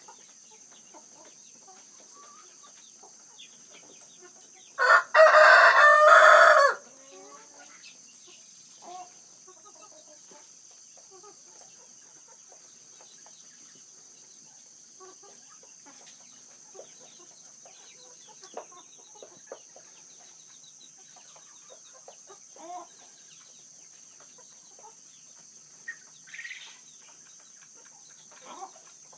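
A male Manchurian Golden Coturnix quail crows once, loud and pulsed, for about two seconds, about five seconds in. Soft short peeps and chirps from the quail come now and then through the rest.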